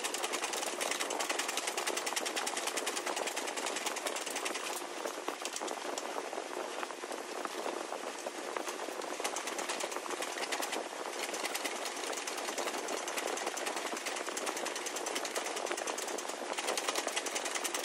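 Roughing gouge cutting into an octagonal scrap-wood blank turning on a foot-powered spring pole lathe: a fast, even, scratchy chatter of tiny clicks as the edge strikes the blank's corners.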